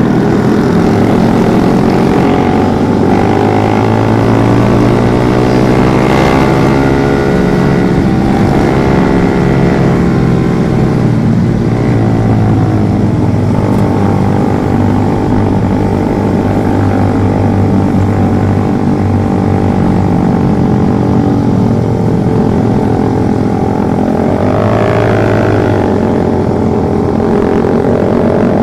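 Suzuki GSX single-cylinder motorcycle engine running through a Pro Liner short aftermarket exhaust while riding, the note climbing and dropping several times as the throttle is opened and closed. The exhaust is loud and aggressive but not well muffled.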